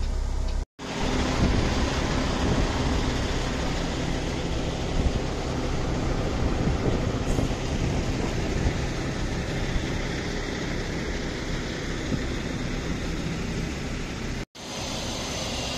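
Heavy diesel truck engine running steadily at idle, a continuous rumble with broad noise over it, broken by two brief dropouts, about a second in and near the end.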